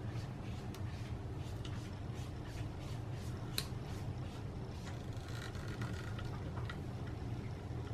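Scattered small clicks and taps of parts being handled during reassembly of a portable phone charging station, the sharpest about halfway through, over a steady low hum.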